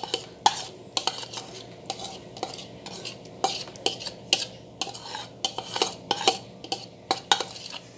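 Metal spoon scraping and tapping against the inside of a small bowl, a run of irregular clicks and scrapes, as a garlic and adobo marinade is scraped out onto raw beef.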